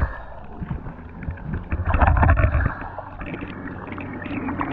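Seawater sloshing and splashing around an action camera held at the surface while a speared hogfish is handled, with a louder splash about two seconds in.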